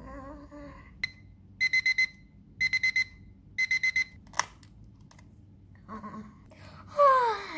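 Alarm clock beeping: one high beep, then quick groups of four beeps about once a second, stopped about four seconds in by a sharp click as it is switched off. Near the end, a loud yawn that falls in pitch, the loudest sound here.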